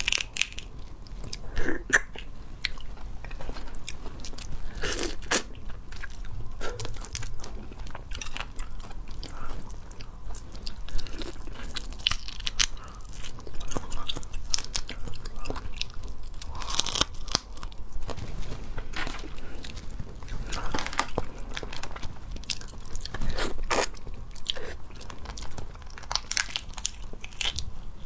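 Boiled crayfish shells being cracked and peeled apart by hand close to the microphone: irregular sharp cracks and wet snaps. Biting and chewing are mixed in.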